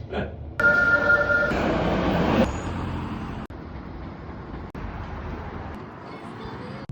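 Road traffic noise from vehicles, a steady rumble that is loudest in the first two seconds, with a brief steady squeal of high tones about a second in.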